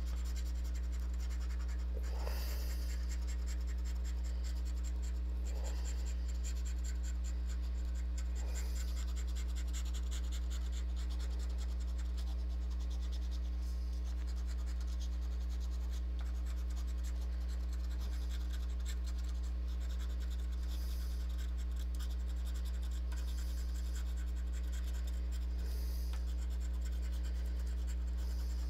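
A coin scratching the coating off a scratch-off lottery ticket, over a steady low hum.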